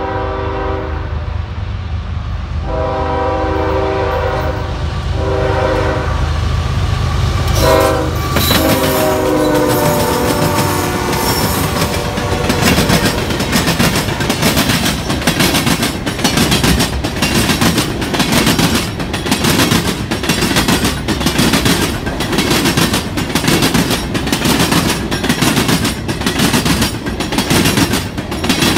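Freight train's diesel locomotive sounding its horn in several blasts as it approaches, the horn's pitch dropping as the locomotive passes about eight seconds in, over the low rumble of its engine. Then a string of hopper cars rolls past with a steady, rhythmic clickety-clack of wheels over the rail joints.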